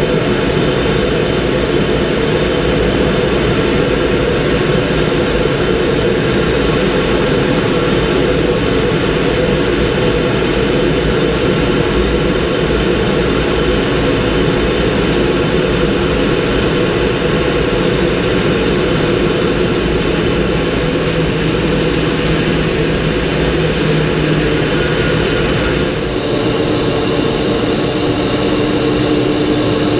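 MiG-15 jet's centrifugal-flow turbojet running, heard from inside the cockpit: a loud, even rush with a high whine on top. The whine slides slightly lower in pitch past the middle, and the sound dips briefly and changes character near the end.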